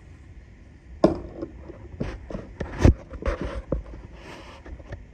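A string of sharp knocks and clicks, the loudest about a second in and again near the three-second mark, followed by a short rustle.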